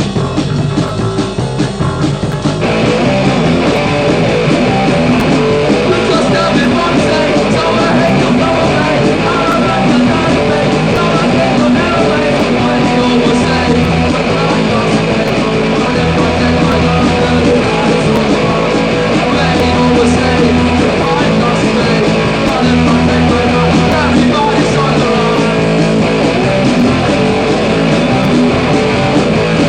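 Punk rock band playing, with electric guitars, from an old tape recording. The first two or three seconds are thinner before the full band sound fills in.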